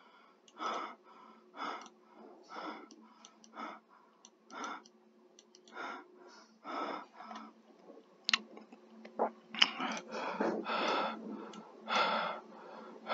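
A person breathing heavily and wheezily close to the microphone, one breath about every second, coming quicker and louder near the end.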